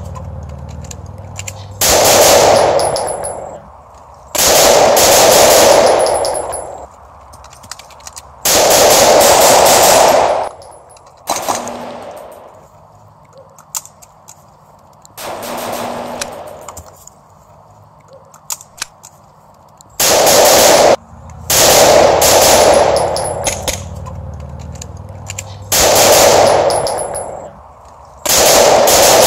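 Gunfire in rapid automatic bursts, about eight bursts of one to two seconds each, with a few single shots between them.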